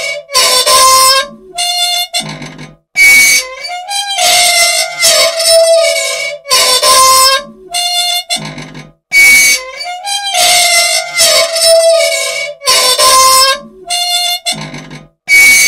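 Old machine squealing and squeaking over and over in a repeating cycle, shrill whistling tones that slide up and down in pitch, broken by brief silences. Dry, unoiled moving parts rubbing, badly in need of oil.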